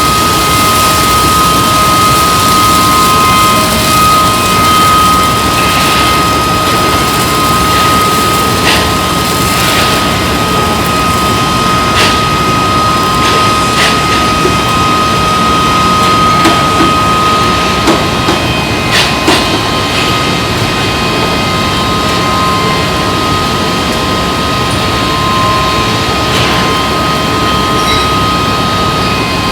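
Foundry furnace running: a loud, steady noise with a constant high-pitched whine, broken by a few scattered knocks and clanks.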